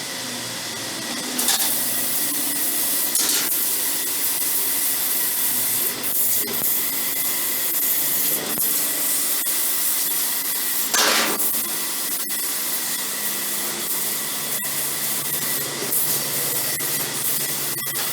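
CNC laser cutter running, with a steady hiss and a thin steady whine, and a few short clicks now and then.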